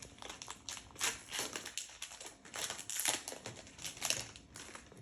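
Pokémon booster pack's foil wrapper crinkling in the hands as the opened pack is handled, in irregular rustles.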